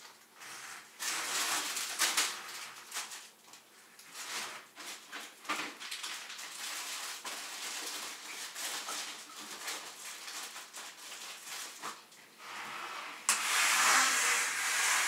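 Plastic grocery bags rustling and crinkling while items are taken out, with small clicks and knocks of packaging. The rustling gets louder near the end.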